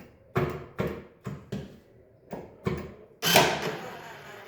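VW Polo Vivo boot release handle pulled again and again with the boot locked, its microswitch and latch parts clicking sharply about six times without the boot opening, followed about three seconds in by a louder, longer rattling scrape of plastic parts.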